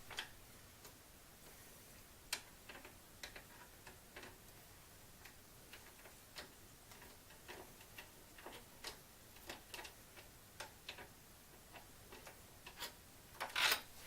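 Faint, irregular small clicks and light taps from objects being handled, with a louder rustling cluster near the end.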